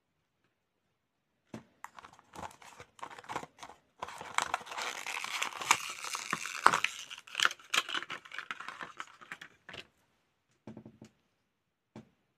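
Thin clear plastic packaging crinkling and rustling as small doll accessories are pulled out of it. It starts about a second and a half in, is densest in the middle, and ends in a few light clicks.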